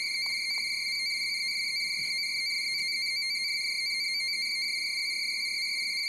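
NAVTEX data transmission (100-baud FSK) heard through an SSB marine radio: a steady, unbroken high electronic tone, being decoded cleanly into text.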